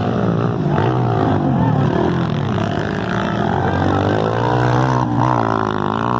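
Motocross bike engines running, with one revving up and rising in pitch from about four seconds in.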